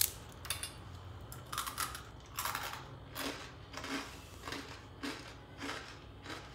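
Crisp fried murukku (chakli) snapping and crunching: a run of about a dozen short, dry crackles, one every half second or so.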